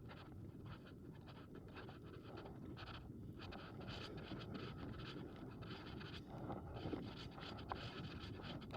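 Gear-laden pull wagon's wheels rolling over a paved trail: a faint, continuous scratchy rumble with small irregular rattles and clicks, the wagon moving smoothly.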